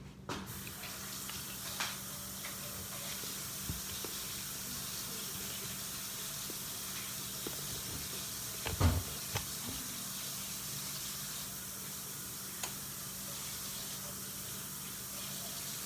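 Kitchen tap running steadily into the sink, with a single knock about nine seconds in.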